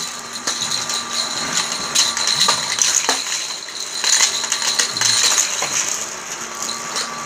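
Orange plastic toy car track set: a steady motor whine under scattered small clicks and rattles of die-cast toy cars on the plastic track.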